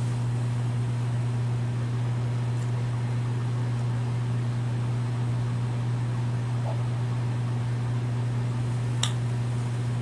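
Built-in slot-loading DVD drive of a 2010 white MacBook spinning and reading the Mac OS X install disc as the machine boots from it: a steady low whirring hum, with one brief click about nine seconds in.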